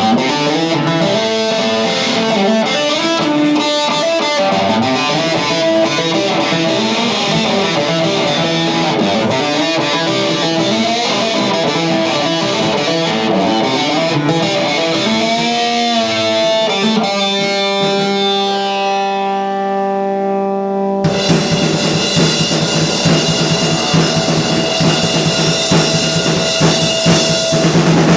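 Live rock band: an electric guitar with effects picks a melodic intro alone, then holds a ringing chord. About 21 seconds in, drums and the full band crash in together.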